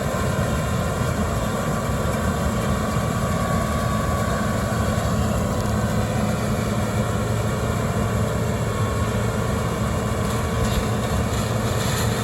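Combine harvester running steadily during soybean harvest: a constant engine and machinery drone.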